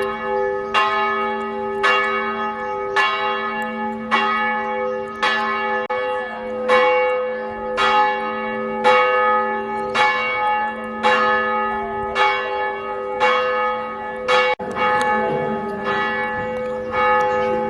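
A church bell tolling, struck steadily about once a second, each stroke ringing on into the next.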